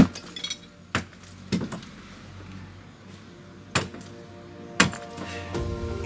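A hand hammer striking a concrete slab, about five sharp, irregularly spaced blows with a metallic clink, over background music.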